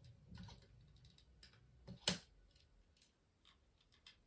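Faint, scattered clicks and taps of small plastic parts being handled as the speaker is worked off a Furby Baby's plastic shell, with one sharper click about two seconds in.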